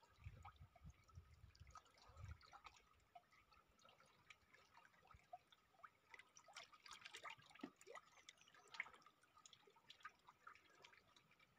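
Near silence, with faint small water sounds: lapping, dripping and light splashes as a river coracle is paddled.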